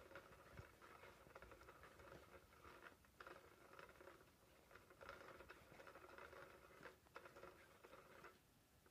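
Faint whirring and rustling of a SmartyKat Hot Pursuit cat toy: its small motor turns the wand round under the fabric cover. The sound breaks off briefly about three seconds in and dies away shortly before the end.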